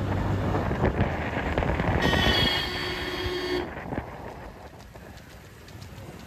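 A vehicle horn sounds once, held for about a second and a half starting about two seconds in, over a rumble of engine and road noise that fades away in the second half.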